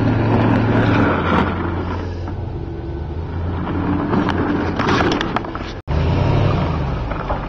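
SUV engine running at low revs, a steady low hum, with a few light knocks about five seconds in. The sound cuts out for an instant near six seconds and the engine hum resumes.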